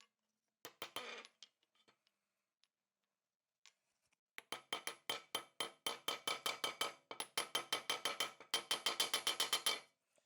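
Quick, evenly repeated strokes of a hand tool working the maul, about five a second, each with a slight ringing tone. A short burst of strokes comes about a second in, and the long run starts about halfway through.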